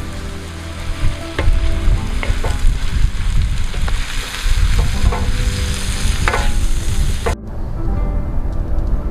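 Meat and vegetables sizzling in a saj as they are stirred, with the utensil clicking and scraping against the metal. About seven seconds in the sizzle drops away abruptly.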